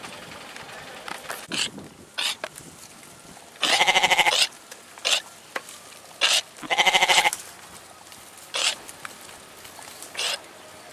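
Domestic goats bleating: two long, loud, wavering bleats about four and seven seconds in, with several briefer, fainter sounds between them.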